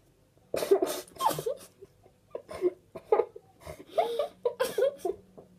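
Two girls laughing and coughing with their mouths stuffed full of marshmallows, in a run of short bursts starting about half a second in.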